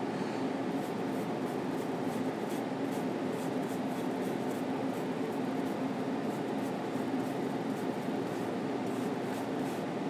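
Steady low hum of room noise, with faint soft scratches of a paintbrush stroking oil paint on a linen panel, mostly in the first few seconds and again near the end.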